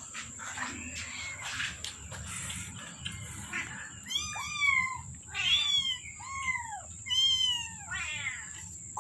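Young kittens, about 25 days old, mewing: a run of about five high-pitched mews, roughly one a second, beginning about four seconds in.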